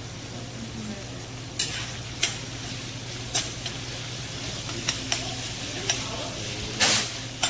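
Thin slices of beef sizzling in hot oil in a stainless steel skillet, while a metal spoon stirs the meat. The spoon clinks against the pan several times, and its longest and loudest scrape comes near the end.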